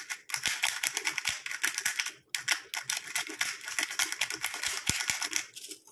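Small glass pepper grinder twisted by hand, grinding peppercorns with a fast run of dry ratcheting clicks, in two spells with a brief pause a little after two seconds in.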